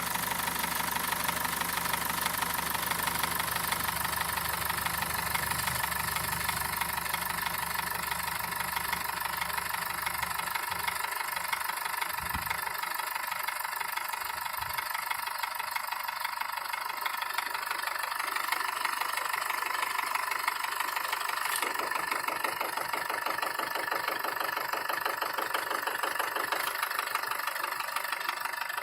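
BMW M47TU 2.0-litre four-cylinder turbodiesel idling with a rapid, even knock from the engine, the engine knock the owner is recording.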